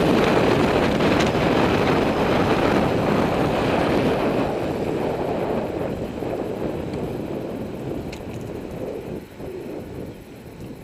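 Wind rushing over the camera microphone of a moving road bike. It is loud at first and dies away steadily over the second half as the bike slows.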